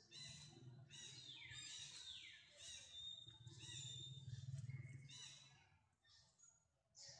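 Faint series of short, high-pitched animal calls repeating every half second or so, several sliding down in pitch, over a low rumble. The calls stop about two-thirds of the way through.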